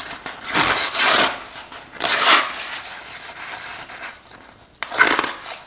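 Kitchen knife slicing through a sheet of paper in about three quick rasping strokes, a test of the freshly sharpened edge.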